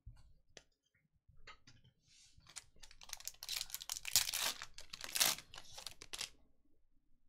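Foil wrapper of a Panini Select trading card pack being torn open and crinkled, a run of crackling rustles from about two and a half seconds in until near the end. A few light clicks of handling come first.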